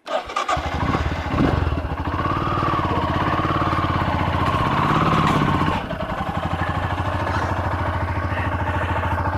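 Royal Enfield Himalayan's single-cylinder engine running as the motorcycle is ridden up a trailer ramp. It pulls harder with a slowly rising note for the first few seconds, then drops to a steady idle about six seconds in.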